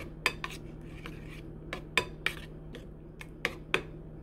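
A metal spoon clinks against a ceramic bowl while stirring mashed banana and almond milk. There are about ten sharp clinks at an uneven pace, and they stop shortly before the end.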